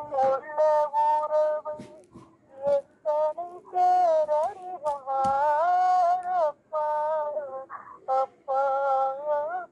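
A single voice singing a Tamil devotional awakening hymn unaccompanied, in long held notes that bend and waver, broken by short pauses.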